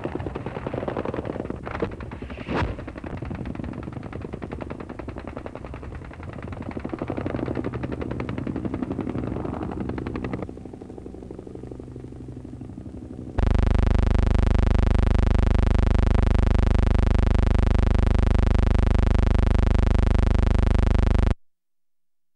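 Rapid machine-gun fire with helicopter noise from a UH-1 Huey gunship, with two sharp cracks about two seconds in. The fire fades about ten seconds in. A few seconds later a loud, steady buzzing tone takes over for about eight seconds and cuts off suddenly.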